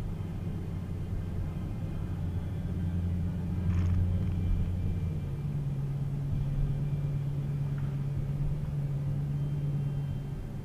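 Car engine and road noise heard inside the cabin while driving: a steady low drone whose pitch steps up about halfway through.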